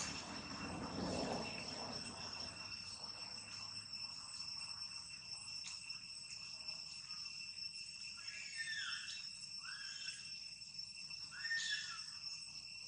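Steady high insect drone, two unbroken tones, with a brief rustle at the start. About two-thirds of the way in, a run of four short calls that each sweep downward in pitch.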